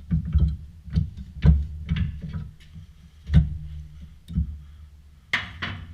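Irregular metal knocks and clunks as a stuck front brake caliper is forced loose, a few strikes a second or so apart. Near the end comes a short, harsh scraping clatter.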